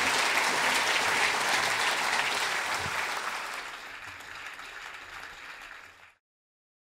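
Audience applauding, a dense spatter of many hands clapping that dies away over the last few seconds and stops about six seconds in.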